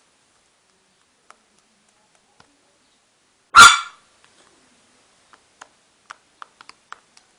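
A single loud dog bark about halfway through, followed by a run of short, faint clicks, about three a second.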